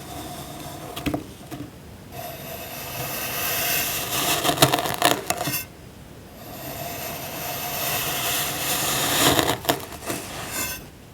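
A tool scraping and cutting through packed sand with a gritty crunch: two long strokes, each growing louder and ending in a few crisp cracks as the sand breaks.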